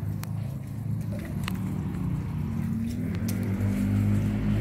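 A motor running steadily with a low hum, a little louder near the end, with a few sharp clicks over it.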